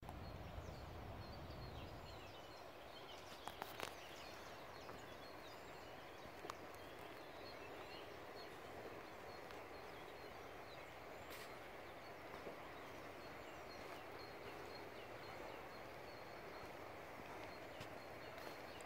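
Faint woodland ambience: a steady background rush with many small bird chirps and calls scattered throughout, and a few sharp clicks about three and a half seconds in.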